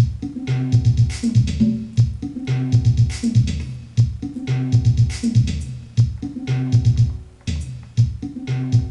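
Sequenced electronic music from a MIDIbox SEQ V3 step sequencer driving its sound sources. A short loop of low bass notes, played as quick stuttering repeats, repeats over and over with sharp drum-machine hits.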